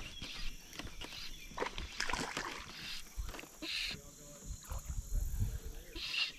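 Water lightly sloshing and splashing, with irregular small knocks, around a kayak.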